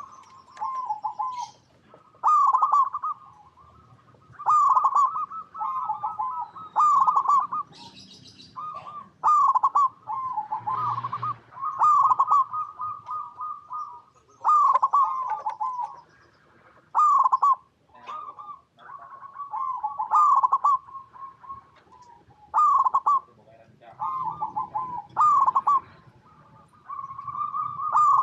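Zebra dove (perkutut) singing: repeated phrases of quick, rolling coos, each phrase a second or two long, with short pauses between them.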